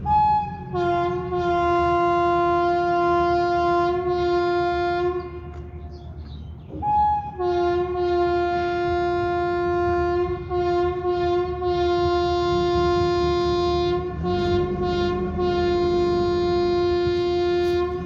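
WAP7 electric locomotive's horn honking in long continuous blasts: one of about five seconds, a short break, then another lasting over ten seconds, each starting on a brief higher note before settling lower. The continuous honking goes with an alarm-chain pull on the train.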